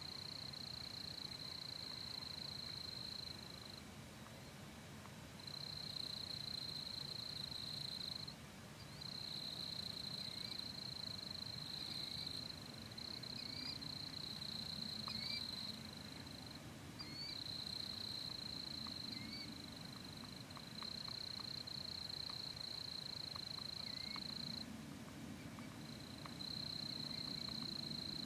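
Insects trilling at dusk: a steady high-pitched trill that starts and stops in stretches of a few seconds, with faint short rising chirps over it through the middle.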